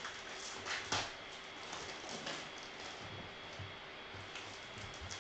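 Foil wrapper of a trading-card pack crackling as it is handled and torn open by hand, in several short crinkles, the loudest about a second in.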